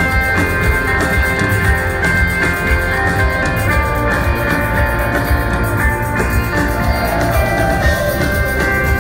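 Live rock band playing: drum kit, guitars and keyboards with steady held notes over a continuous beat, heard loud through the arena PA.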